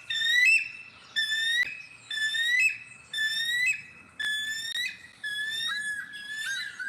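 Recorded bald eagle call played back: a long series of high, piping whistled notes, each rising slightly in pitch, around two a second.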